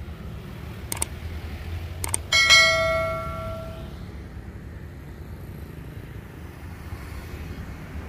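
Subscribe-button sound effect: two mouse clicks, then a bright bell chime that rings out and fades over about a second and a half. Under it is a steady low hum of passing motorbike traffic.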